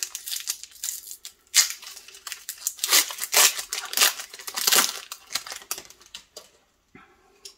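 Shiny foil wrapper of an Upper Deck Series 2 hockey card pack being torn open and crinkled: a run of sharp crackling rips and crumples, loudest in the middle, dying away about six seconds in.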